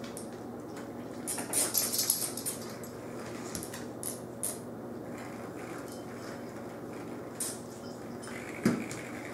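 Metallic clinking and rattling as a cocker spaniel puppy tugs and shakes a pull-string cat toy: a quick flurry about a second in, a few single clinks after that, and a thump near the end, over a steady low hum.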